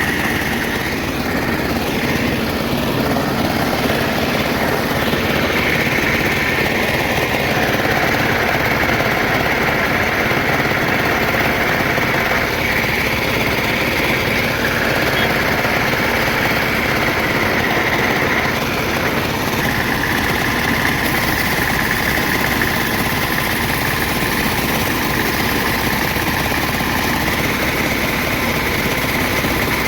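A motor-driven workshop machine working on a sickle blade, running steadily with a high whine that shifts slightly in pitch now and then as the load changes.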